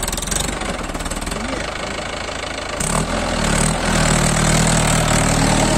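Mahindra Yuvo 575 DI tractor's four-cylinder diesel engine running as the tractor moves at low speed. About three seconds in the engine note deepens and gets louder.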